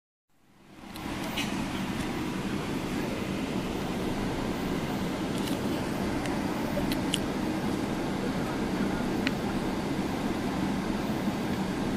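Cabin noise of a Boeing 777-300ER taxiing: a steady rumble and hiss from its GE90 engines at taxi power, heard inside the cabin behind the wing. It fades in during the first second, with a few faint clicks scattered through it.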